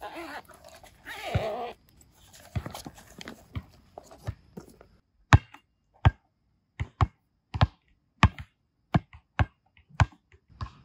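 A basketball being dribbled, sharp single bounces coming at a somewhat irregular one to two a second from about five seconds in. Before that there is rustling with a few softer knocks.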